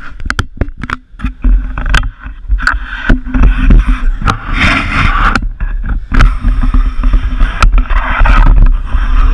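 Low road and engine rumble heard inside a moving minivan, with many sharp clicks and knocks from the camera on its selfie stick being handled and swung around.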